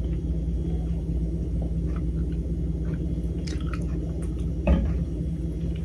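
Steady low hum with faint gulping and mouth sounds as someone drinks from a glass, and one brief louder sound near the end.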